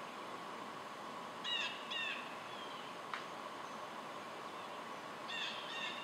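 A bird giving short calls in pairs: two about half a second apart after a second and a half, and two more near the end, over a steady outdoor background hiss. A single faint click falls about halfway through.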